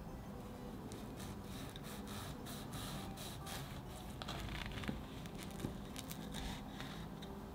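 A knife sawing down through a crisp, crumble-topped choux cream puff. The baked crumble and shell crackle and crunch in irregular little clicks, with a couple of sharper clicks about five seconds in as the blade comes down toward the wooden cutting board.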